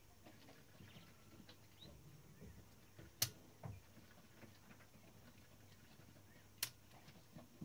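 Faint small ticks and scrapes of hands working on a typewriter's mechanism, with two sharp clicks, the first a little past three seconds in and the second about three and a half seconds later.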